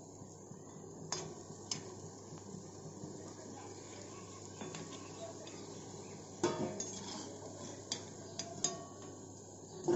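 Pakoras deep-frying in hot oil in a kadhai, a steady sizzle, with a metal skimmer and spoon clinking and scraping against the pan several times, the loudest knock about six and a half seconds in.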